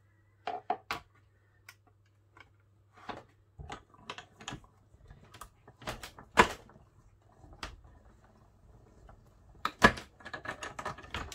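Manual die-cutting machine being fed and cranked: plastic cutting plates knocked into place and the handle turned, giving a scattered run of clicks and knocks, the loudest about halfway through and again near the end.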